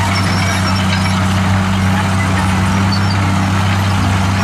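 Komatsu D63E crawler bulldozer's diesel engine running with a steady, even drone as the dozer pushes a pile of earth with its blade.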